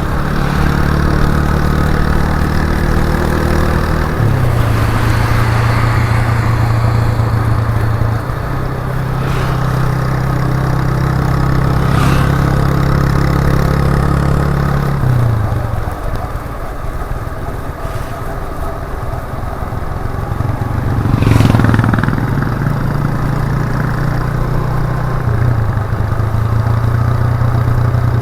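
1998 Suzuki GN125's single-cylinder four-stroke engine running through its unmuffled exhaust on the move, its pitch shifting in steps several times. It drops quieter for a few seconds past the middle, and a brief louder noisy surge follows.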